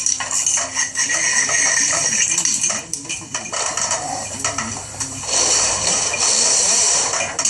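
Metal clinking and rattling of armored BX cable's spiral metal sheath being handled and pulled from the roll.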